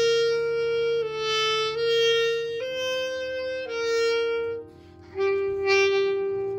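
Alto saxophone playing a slow melody of long held notes, with a brief breath pause about five seconds in before a long held note. A quieter sustained accompaniment continues underneath.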